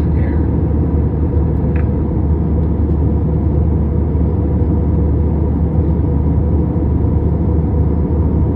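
Steady, loud low rumble of an Airbus A321's engines and rushing airflow in flight, heard inside the passenger cabin.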